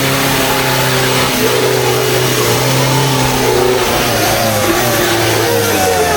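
Off-road 4x4 engine running hard under heavy throttle, its pitch holding and then stepping as the revs change.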